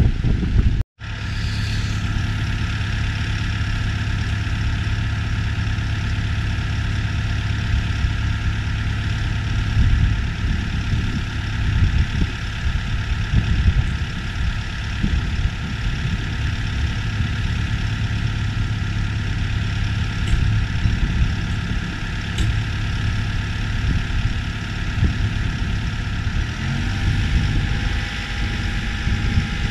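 Engine idling steadily, with a brief break in the sound about a second in.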